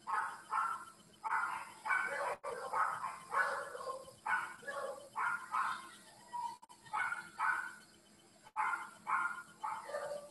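A dog barking over and over in quick runs of short barks, with brief pauses between the runs.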